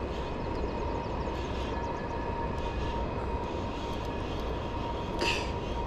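Rushing river water in high snowmelt flow, a steady noise throughout, with a short sharper sound about five seconds in.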